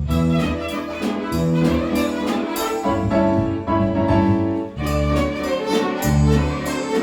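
A student violin ensemble playing a lively, quick-moving piece, with a lower bass part sounding beneath the violins.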